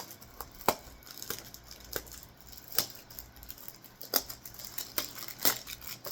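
Handling noises from a perfume box and its packaging: scattered sharp clicks and faint rustling, a few seconds apart.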